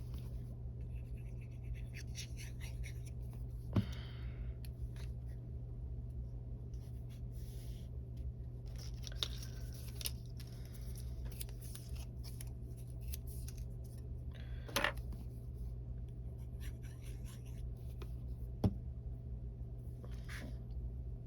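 Paper and card being handled at a craft desk: scratchy rustling and scraping, with a few sharp taps, about 4, 15 and 19 seconds in, over a steady low hum.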